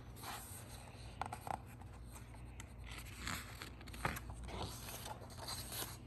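Paper pages of a picture book being handled and turned: irregular rustling and scraping strokes, a few sharper ones among them.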